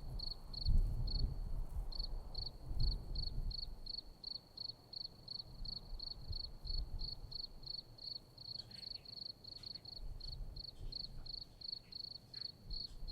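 A cricket chirping steadily at one high pitch, about four chirps a second, over a faint low rumble.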